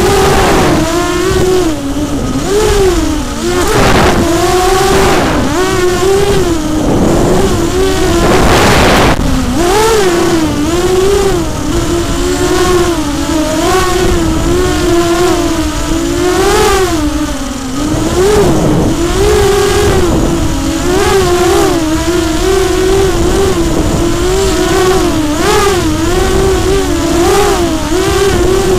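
Brushless motors and propellers of an FPV racing quadcopter whining, heard from on board the craft. The pitch swings up and down constantly as the throttle is worked through fast turns.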